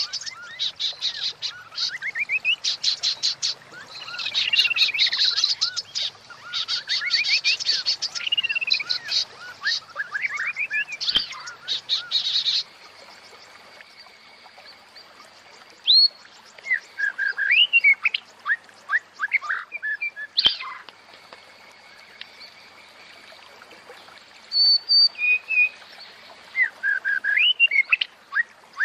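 Female white-rumped shama (murai batu) calling: a rapid rattling chatter mixed with arching whistled notes. This is the call used to bring male shamas into breeding condition. About 13 seconds in the sound changes abruptly to sparser short whistles over a faint steady high tone, and the chatter returns near the end.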